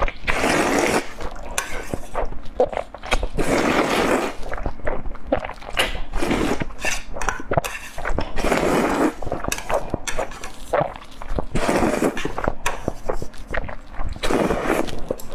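Close-miked eating: a loud slurping rush comes six times, with wet chewing clicks in between.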